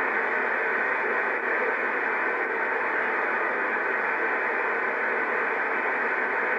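Steady rushing of river rapids, muffled and even throughout, with no distinct splashes or other events.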